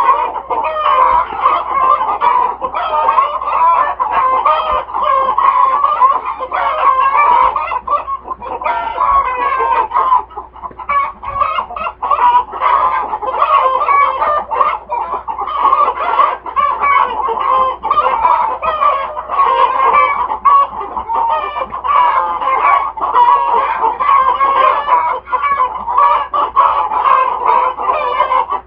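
A flock of laying hens clucking and cackling loudly, many birds calling over one another without a break.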